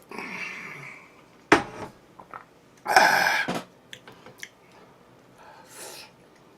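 Close-up eating noises from a person eating Chinese food: a few short mouth sounds, a sharp click about a second and a half in, and a loud noisy burst around three seconds in.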